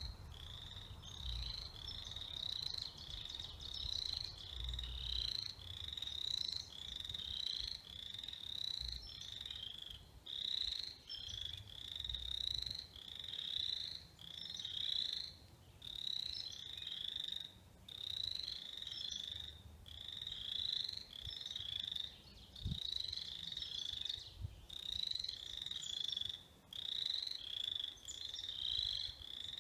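A chorus of frogs calling: high-pitched calls about a second long, repeating one after another almost without a break.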